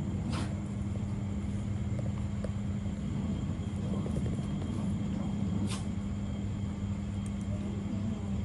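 A steady low mechanical hum, with two brief sharp clicks, one just after the start and one about two-thirds of the way in.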